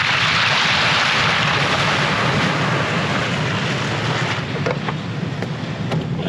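Pickup truck's tyre splashing through a muddy puddle: a rushing spray of water that peaks in the first couple of seconds and fades, over the steady low drone of the truck's engine.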